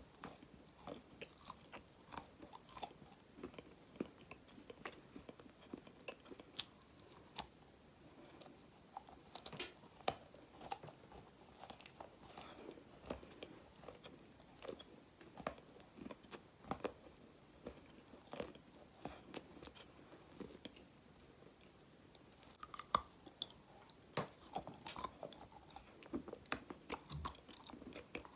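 Close-miked chewing of dry black edible clay: crisp, irregular crunches and crackles as the chunks break between the teeth, several a second.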